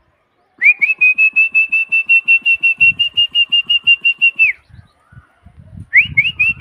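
A person whistling a long, high, rapidly warbling note for about four seconds, then short rising whistles near the end: a pigeon keeper whistling to his flock flying overhead.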